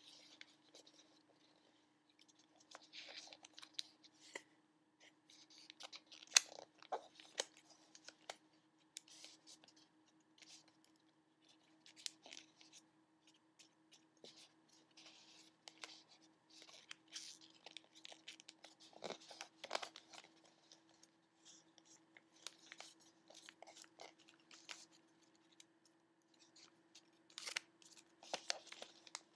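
A sheet of origami paper being folded and creased by hand: irregular crackles, rustles and scrapes as the folds are pressed flat, over a faint steady hum.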